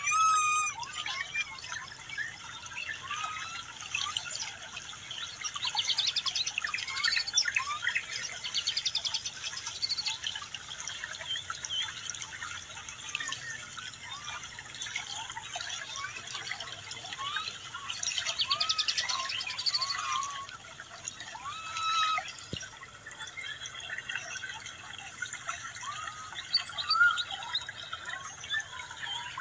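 Many short, high chirping calls overlapping throughout, with a rapid buzzing trill that swells a few times, near 7 seconds in and again near 19 seconds.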